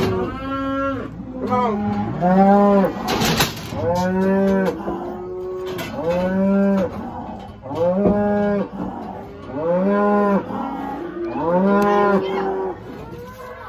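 Cattle mooing again and again: about seven long calls, roughly two seconds apart, with a sharp metal clank about three seconds in.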